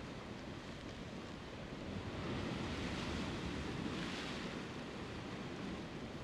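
Sea surf washing on the rocks, mixed with wind; the wash swells about two seconds in and eases off after about four seconds.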